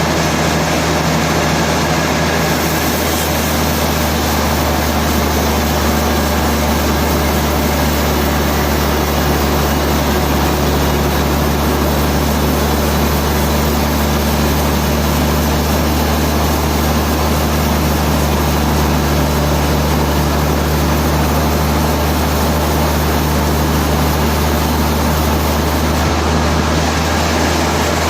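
Heavy sawmill machinery running steadily: a loud, constant drone with a deep hum underneath.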